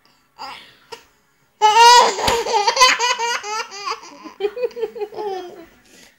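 Baby laughing: after a couple of short breaths, a long run of high-pitched giggles starts about a second and a half in, loudest at first, then tapering off near the end.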